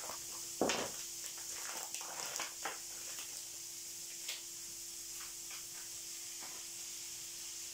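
Onions and lardons sizzling in a frying pan, with scattered knocks and scrapes of a utensil and the pan. One louder knock comes about a second in; a faint steady hum runs underneath.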